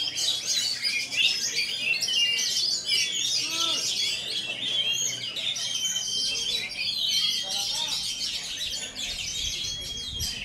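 Oriental magpie-robin (kacer) singing a fast, unbroken stream of high, varied chirps and short whistles.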